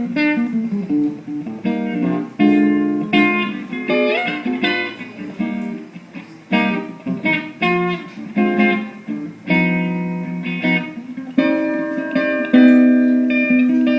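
Solo guitar taking an instrumental break in a live jazz ballad, picking single-note lines and chords. Near the end it settles into longer held notes.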